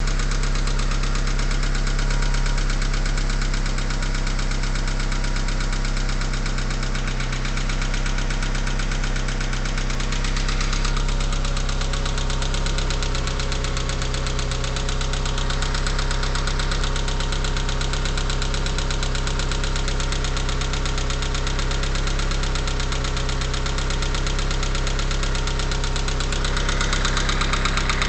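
Mitsubishi 4G63T turbocharged 2.0-litre inline-four idling cold with a fast, even knocking tick. It is a cold-start knock that the owner says goes away once the engine is warm, and which he suspects is lifter noise or piston slap.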